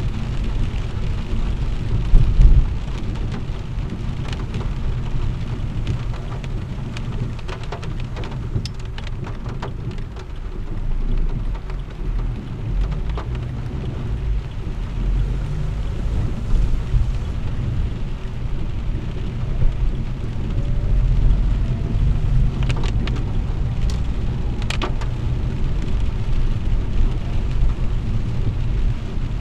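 Heavy rain on a car's roof and windshield, heard from inside the moving car: a steady patter with scattered sharp drop taps over a constant low rumble. A louder knock comes about two seconds in.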